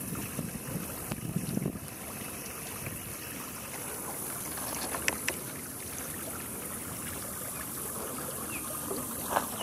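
Outdoor ambience: wind gusting on the microphone in the first couple of seconds over a steady high hiss, with a few faint clicks around the middle and a sharper pair near the end.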